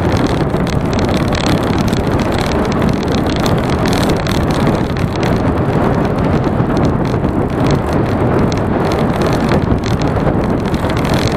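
Steady wind rush and road rumble from a bicycle riding at speed, with wind buffeting the action camera's microphone.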